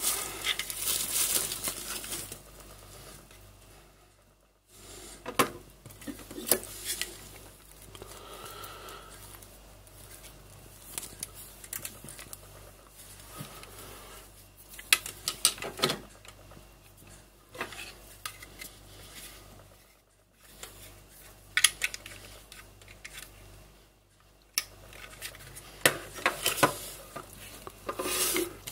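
Plastic packaging crinkling at the start, then scattered sharp clicks and knocks as a small plastic battery charger is handled and set down on a stone countertop. A faint low hum runs underneath.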